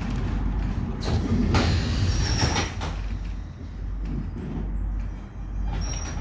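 Electric tram running along its rails, a steady low rumble with several knocks and clatters between about one and three seconds in and a brief high squeal from the wheels about two seconds in.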